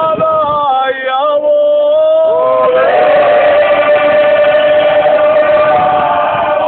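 Traditional Bosnian izvorna folk singing: a lead voice holds and bends long notes, and about three seconds in more voices join in a loud, held chord.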